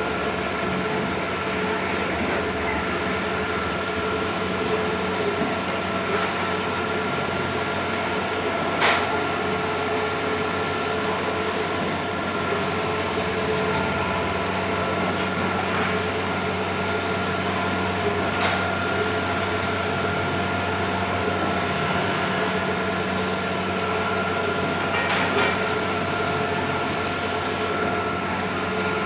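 Bluewin large-format outdoor banner printer running: a steady mechanical hum with several held tones and a few brief sharp clicks.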